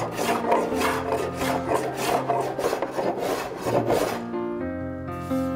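A hand tool rasping back and forth across the face of a rough-sawn English walnut board in quick, even strokes, about four or five a second, scraping back the sawn surface to show the grain and colour. The strokes stop about four seconds in, leaving background music with piano and guitar notes.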